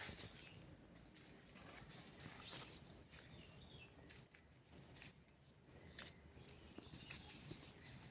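Faint insects chirping outdoors: short high chirps repeating about two or three times a second, with scattered faint clicks.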